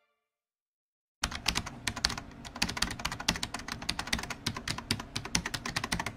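A quick, irregular run of sharp clicks, several a second, starting about a second in.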